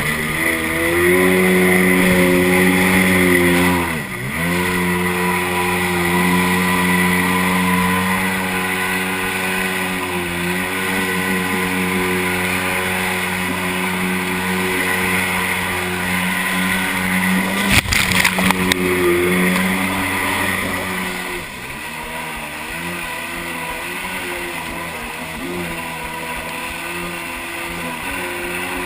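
Kawasaki JS440 stand-up jet ski's two-stroke engine running at speed. The pitch dips sharply and comes back about four seconds in as the throttle is eased and reopened, and it does so more gently again around ten seconds. A few sharp knocks come a little past the middle, then the engine drops to lower, uneven revs for the last quarter.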